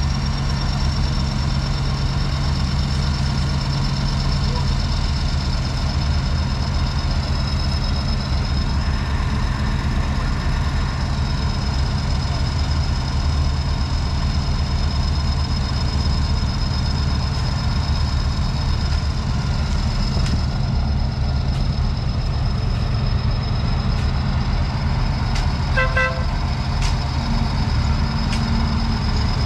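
Heavy diesel road-paving machinery running steadily, a low engine drone under a constant high-pitched whine, with a quick run of short beeps near the end.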